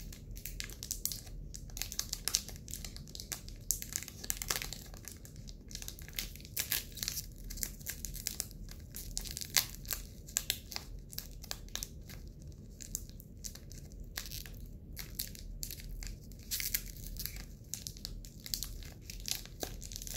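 Foil wrapper of a Japanese Pokémon booster pack crinkling and tearing in many small, irregular crackles as it is carefully pulled open by hand.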